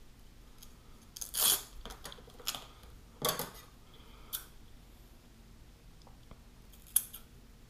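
Scissors cutting Velcro strip, a handful of short snips at uneven intervals, the longest about a second and a half in, with a sharp click near the end.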